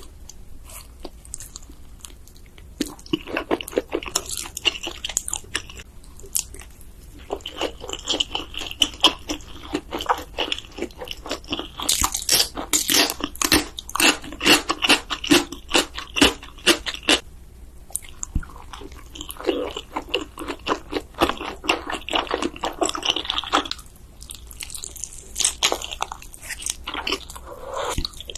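A person eating instant noodles close to the microphone: biting, chewing and crunching in rapid runs of sharp clicks, coming in bursts with short lulls between them.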